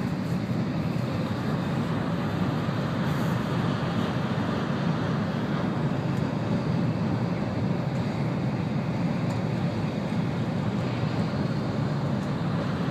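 Steady interior running noise of an N700-series Shinkansen at high speed: a constant low rumble with no breaks.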